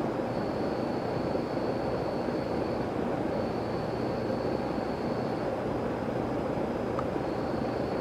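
Steady rumbling background noise with a faint high-pitched whine that drops out twice and comes back.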